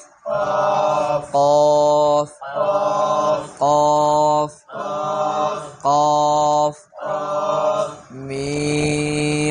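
A man's voice chanting Arabic letter names in a drawn-out, sing-song recitation. He holds each name for about a second on a steady pitch, about eight in a row with short breaks between them.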